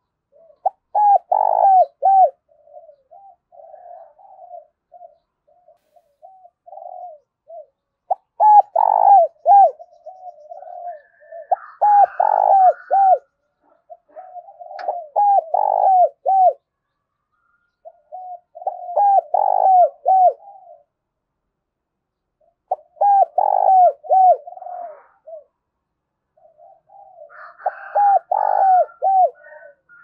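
Caged decoy spotted dove cooing repeatedly: seven loud phrases of three or four arching coos, a few seconds apart, with softer cooing in the gaps between them.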